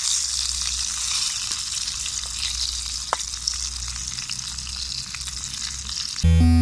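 Coarse-ground sausages sizzling in a camp cooker pan over a wood-stove fire: a steady hiss with scattered small pops. Music comes in just before the end.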